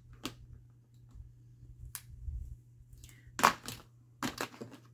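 A few light clicks and taps of small objects being handled and set down on a work table, the loudest cluster about three and a half seconds in, over a low steady hum.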